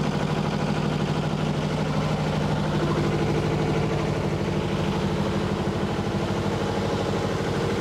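Houseboat's onboard generator engine running steadily, a constant hum with a regular low throb, alongside the air-conditioner compressor units it powers. A second, higher steady tone joins about three seconds in.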